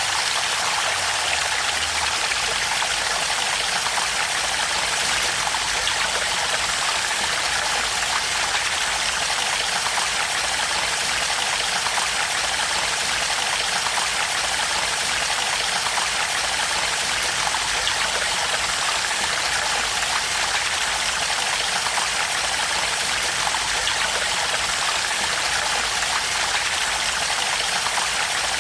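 Flowing water: a steady, even rush of running water.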